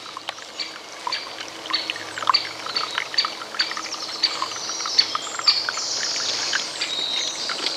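Great spotted woodpeckers calling: short, sharp, high calls repeated about every half second, with some longer high notes about five seconds in. Water trickles faintly beneath.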